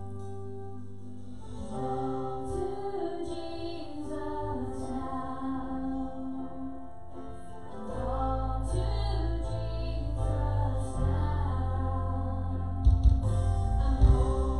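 Live contemporary worship music: a woman sings a slow melody over held keyboard chords. Bass fills in about eight seconds in, and drum hits come in near the end.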